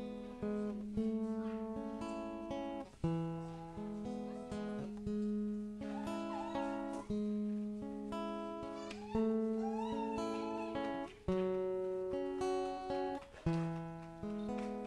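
Solo acoustic guitar playing slow instrumental chords, each struck and left to ring out before the next chord change.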